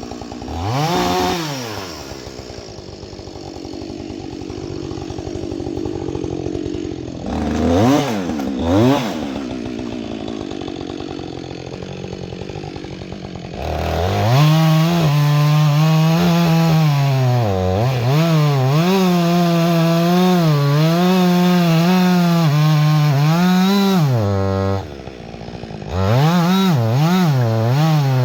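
Husqvarna 562 XP two-stroke chainsaw idling with a few quick throttle blips, then held at full throttle and cutting into a large white pine, its pitch wavering as the chain bites into the wood. Near the end it drops briefly back to idle and is revved back up into the cut.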